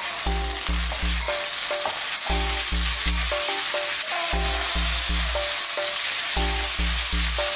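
Chicken breast strips and onion sizzling in hot oil in a wok, stirred with a wooden spoon, with a steady hiss throughout. Background music with a repeating bass line plays underneath.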